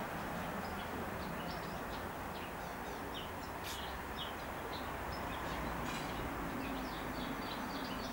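Small birds chirping in short, irregular bursts over a steady background rumble.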